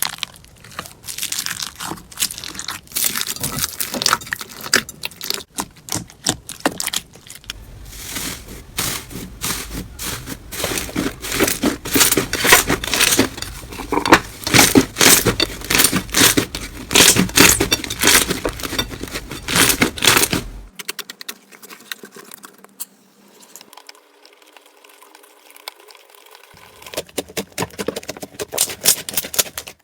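Slime being squeezed, stretched and poked by hand, giving a dense run of crackling, popping clicks. About two-thirds of the way through it goes quieter for several seconds, then the crackling picks up again near the end.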